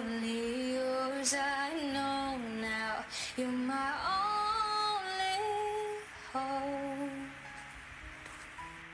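A young woman's voice singing a wordless, held melody line over soft backing music, with two short breaks. The voice stops a little over seven seconds in, leaving only the quiet accompaniment.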